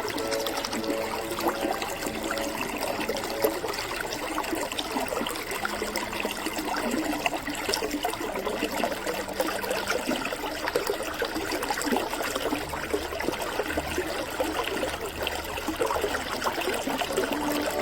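Shallow creek flowing steadily over stones, a continuous trickling and splashing of clear running water.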